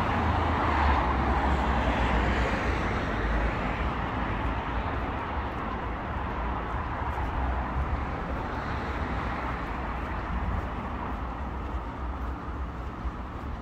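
Road traffic noise: the rush of a passing vehicle fades away over the first few seconds, leaving a steady hum of traffic with a low rumble.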